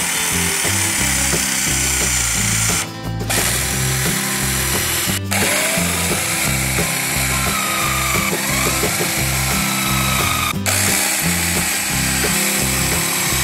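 Cordless drill boring a hole through a wooden block with a twist bit, the motor running loud and stopping briefly three times, about three, five and ten and a half seconds in. Background music with a steady beat runs underneath.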